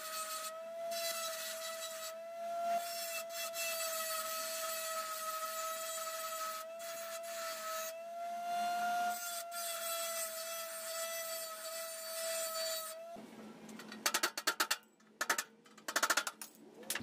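A small power tool runs with a steady whine and an abrasive hiss, as when working on metal. About two-thirds of the way through it stops abruptly, and rapid bursts of scraping or rubbing strokes follow.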